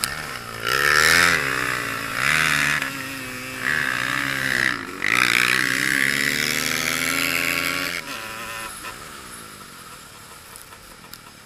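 Racing quad (ATV) engine revving hard in repeated bursts, its pitch climbing and falling as the throttle is worked, with a short drop a little before five seconds. About eight seconds in the throttle comes off and the engine runs on much quieter.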